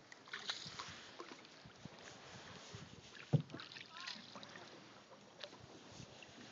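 Canoe paddling on calm water: paddle strokes with small splashes and water sounds, and one louder knock about three seconds in.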